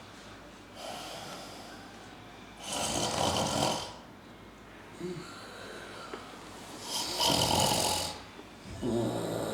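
A man snoring in his sleep: two loud, long snores about four seconds apart, with quieter breathing between them.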